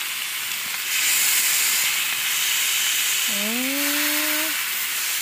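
Steaks sizzling on a hot Blackstone flat-top griddle, a steady hiss that grows louder about a second in.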